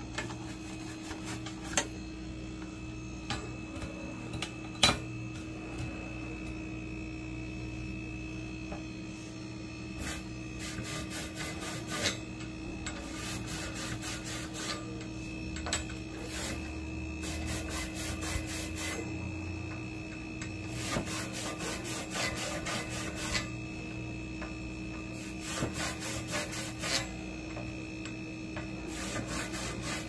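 A small brush scrubbing dust off refrigerator coils. It goes in runs of quick back-and-forth scraping strokes, several seconds each, over a steady hum.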